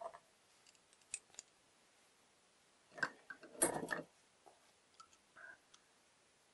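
Light metallic clicks and rattles of a small steel AUBI window-fitting gearbox handled by hand as a square steel bar is fitted into its hub, freshly reassembled after repair. The clicks come in scattered bunches, the loudest about three to four seconds in.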